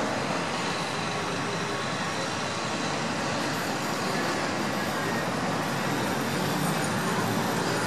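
Steady, even rumble of road traffic, with no distinct calls or knocks standing out.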